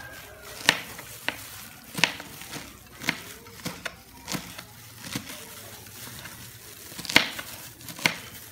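Kitchen knife chopping cabbage on a plastic cutting board: irregular knocks of the blade striking the board, roughly one a second, with a pause of about two seconds past the middle.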